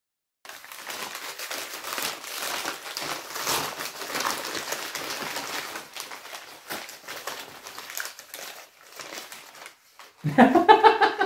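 Wrapping paper and packaging crinkling and rustling as parcels are unwrapped by hand, with many small crackles. Near the end a person's voice is heard briefly.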